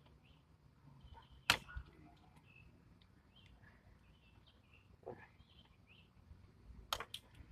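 Motorcycle fairing parts being handled: one sharp click about a second and a half in, a softer knock later, and a quick run of clicks near the end, over a quiet background.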